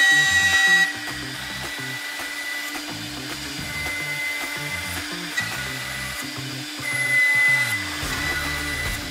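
CNC router spindle running with a steady high whine as a straight end mill cuts a pocket in a softwood beam. It gets louder as the bit bites into the wood, briefly at the start and again about seven seconds in. Underneath, the axis motors hum at stepped, shifting pitches as the gantry moves.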